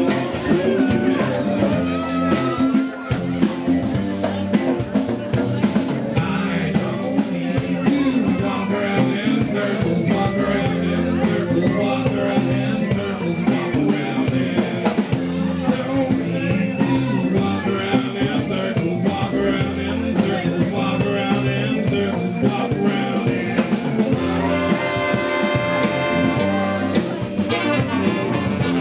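Live band playing a rock song at full volume over a steady repeating bass groove.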